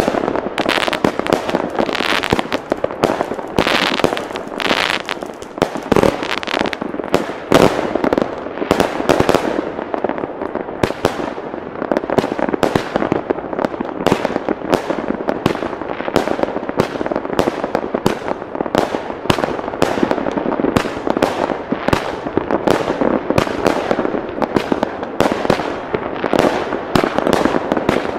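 Weco Highlander 53-shot, 25 mm fan firework battery firing: a fast run of launch thuds and bursting reports, several a second. The shots thicken into a dense, unbroken barrage from about eight seconds in.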